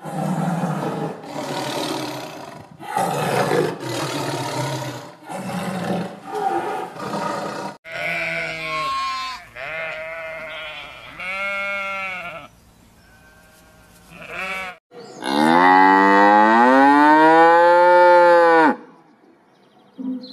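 A run of rough, noisy animal calls for about eight seconds, then cattle mooing: several short moos, then one long moo that rises and falls near the end.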